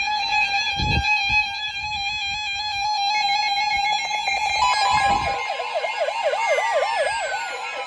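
NOAA Weather Radio warning alarm: a loud, steady alert tone with overtones held from weather radio receivers. About five seconds in, a fast warbling siren-like alarm joins it, and a falling glide sounds near the end.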